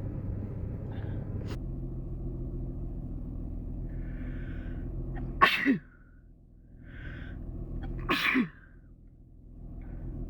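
A person sneezing twice, about three seconds apart, each sneeze preceded by a short breathy intake and ending in a falling vocal sound. A steady low hum runs underneath and drops away after each sneeze.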